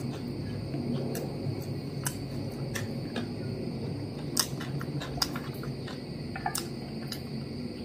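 Eating sounds: a mouthful of mutton biryani being chewed and rice being worked on the plate by hand, with scattered small clicks and taps over a steady low hum.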